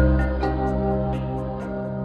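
Background music: soft new-age style music with sustained tones and a light, even beat.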